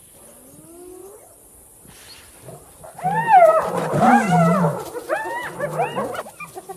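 Spotted hyenas calling: a faint rising whoop early on, then from about three seconds in a loud run of short yelping, whining calls that rise and fall in pitch, one after another, tailing off near the end.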